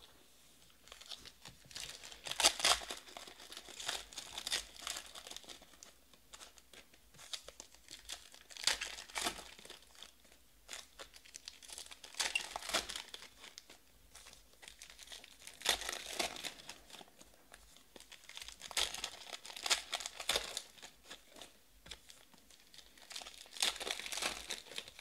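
Foil trading-card pack wrappers being torn open and crinkled by hand, in about six bursts of crackling a few seconds apart.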